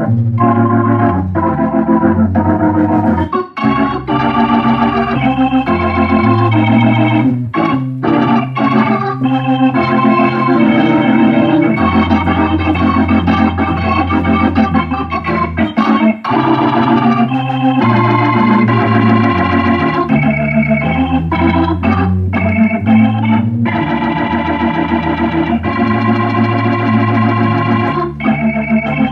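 Hammond A100 organ played through a Leslie 122-type rotating-speaker cabinet (a 22H modified to 122): sustained chords over a moving bass line, in phrases with a few brief breaks.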